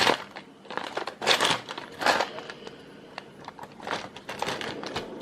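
Intermittent rustling and light clicking of small electronic parts being sorted and handled, in short bursts about a second apart: a search through spare tactile push-button switches.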